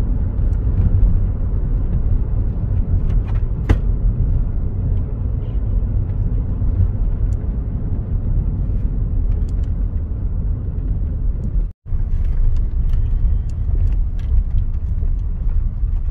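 Car driving along a road, a steady low rumble of engine and tyres. The sound cuts out for a moment about twelve seconds in.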